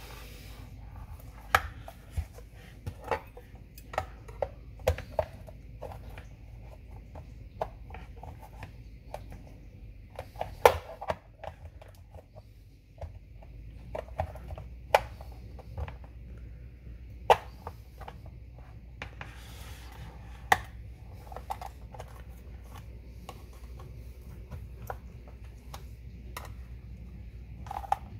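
Metal table knives clicking and scraping against the hard plastic casing of a cordless-vacuum battery pack as its seam is pried open. Sharp, irregular taps come every second or two, a few of them loud, over a low steady hum.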